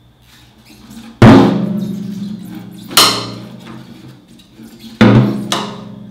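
Rack tom struck with a drumstick three times, about two seconds apart, each hit ringing on with a low pitched tone, with a lighter stroke just after the third; the tom is being hit to check its tuning.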